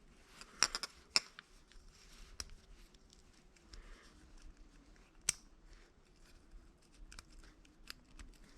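Thin steel oil control ring rail being worked out of its groove on a small-engine piston by hand: faint, scattered light metallic clicks and scrapes, the sharpest about half a second, a second, and five seconds in.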